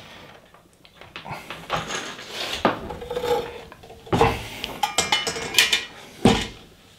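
Hands handling a 3D printer's aluminium frame and wiring: irregular rustling and clicking, a metallic clatter with a brief ringing, and two heavier knocks about four and six seconds in.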